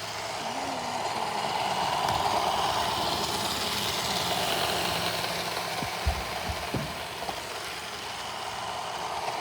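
iRobot Roomba Discovery robot vacuum running, its vacuum motor and brushes making a steady whir that swells over the first couple of seconds. A few light knocks come about six to seven seconds in.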